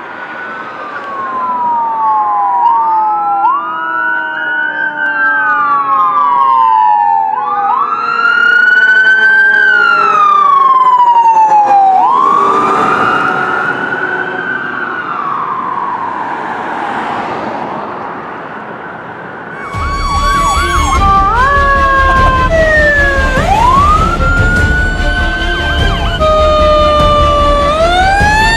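Fire engine sirens on a code 3 response: several siren tones overlapping, rising and falling in long wails. About two-thirds of the way through the sound cuts abruptly to another fire engine's siren, a quick yelp and then wails, over a heavy low rumble.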